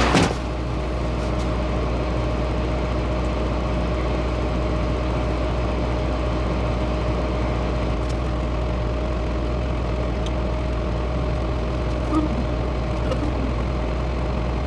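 Semi-truck diesel engine running steadily, a low, even drone heard from inside the cab.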